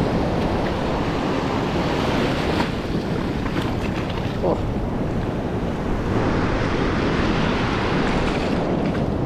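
Surf breaking and washing on a beach, with wind buffeting the microphone, a steady rush of noise throughout.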